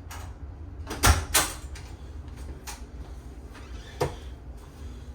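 Door being handled: a few sharp clicks and knocks, two close together about a second in and another near four seconds, over a low steady hum.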